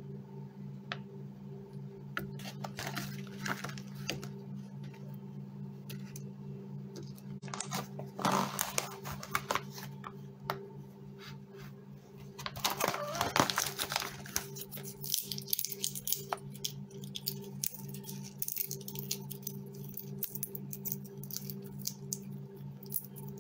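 Plastic treat pouch crinkling in two louder bursts, about eight and thirteen seconds in, among scattered light ticks of a hen pecking treats from a dish, over a steady low hum.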